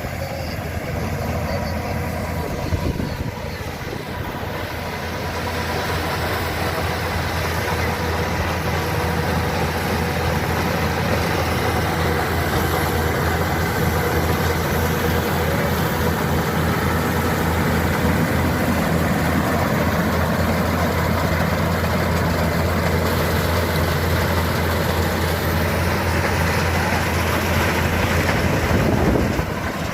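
Engine of a rice harvesting machine running steadily, a constant low hum with a few steady tones above it, growing a little louder after about four seconds.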